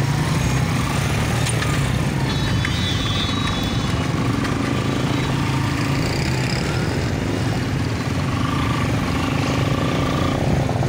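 Motorcycle engine running steadily under way on a rough dirt road.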